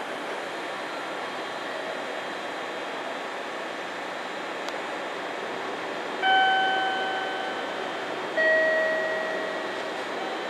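Two electronic chime tones about two seconds apart, each struck and slowly fading, the second lower in pitch, over the steady hum of a parked electric train.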